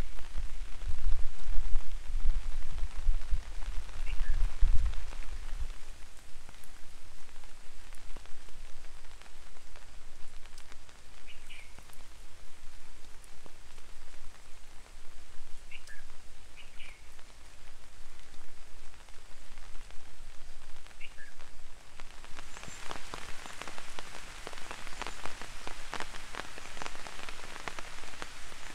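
Light rain falling steadily, with a low rumble in the first few seconds. About 22 seconds in, the pattering of the drops grows denser and louder.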